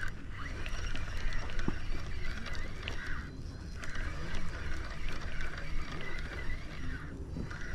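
Wild animals calling in a steady high-pitched chorus that drops out briefly twice, over a low rumbling background noise.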